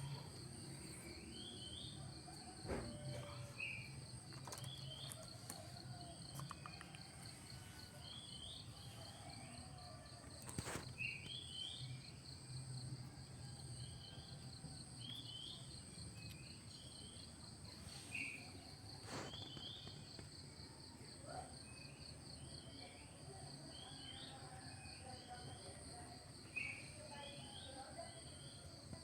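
Faint steady insect chorus, a high pulsing trill held throughout, with short chirps repeating every second or two and a couple of sharp clicks.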